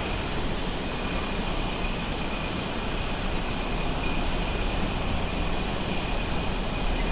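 The Alaknanda River in monsoon flood, its swollen, muddy rapids rushing steadily over boulders.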